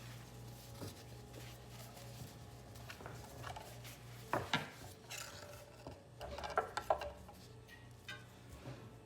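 Kitchen containers and dishes being handled and set down: scattered knocks and clinks, two sharp ones about four and a half seconds in and a cluster around seven seconds, over a steady low hum.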